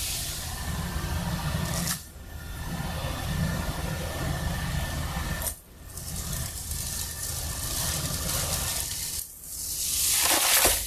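Shattered tempered safety glass held by window film crumbling under air-bladder pressure: small glass fragments tinkling and rattling, then near the end a larger section of broken glass falls out with a loud rushing crash.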